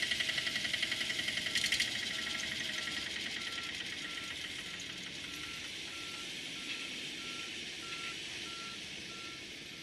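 A reversing alarm beeping about twice a second over the steady running of heavy construction machinery. A fast rattle is heard in the first two seconds.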